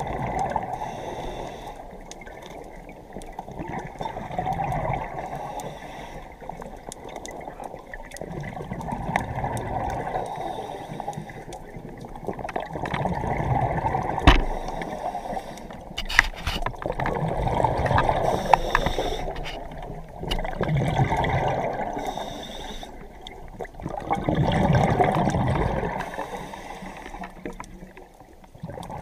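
Scuba diver's exhaled bubbles gurgling, heard underwater, in swells that come and go every three to four seconds with each breath. A few sharp clicks sound about halfway through.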